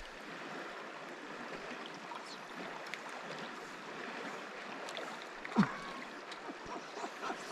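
Steady rush of a shallow river flowing over a rocky bed, with a short falling exclamation about two-thirds of the way through.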